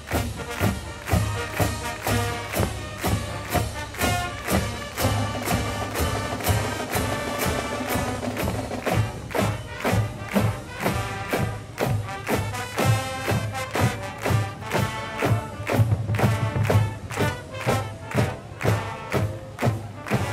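Large marching band of brass, woodwinds and drums playing a march, the brass melody carried over a steady drum beat.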